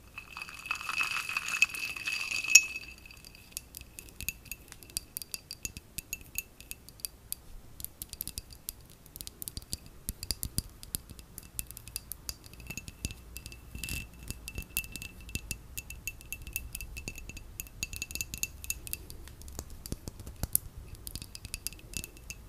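Ice cubes clinking against the sides of a glass mug of cola as it is tilted and turned, in many quick, irregular clicks. A louder rush of hiss and rattle fills the first two or three seconds.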